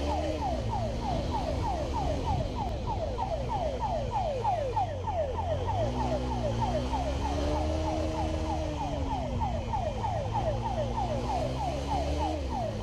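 Police motorcycle siren in a fast yelp, a falling tone repeating about four times a second, over the motorcycle's engine running and rising and falling in pitch as the rider speeds up and slows.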